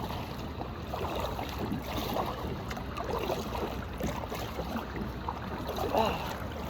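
Water lapping and sloshing around a kayak, with a steady low wind rumble on the phone's microphone and a few faint voice-like sounds.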